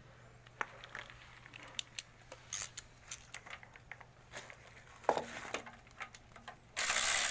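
Scattered metal clicks and clinks of tools and engine parts being handled. Near the end a loud steady noise starts abruptly.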